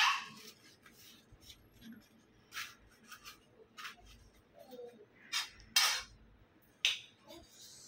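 Bamboo leaves rustling and crackling as they are handled and folded, in short irregular bursts, the loudest a little before and after six seconds in.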